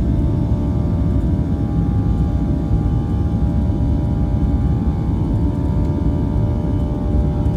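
Boeing 737-700's CFM56 jet engines heard from inside the cabin at taxi power: a steady low rumble with several steady whining tones above it.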